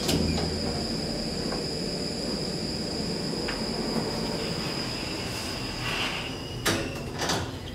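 2009 SMW machine-room-less traction elevator: a button click, then the car running with a steady high whine and rumble, and its doors sliding open near the end with a couple of sharp knocks, over metro station noise.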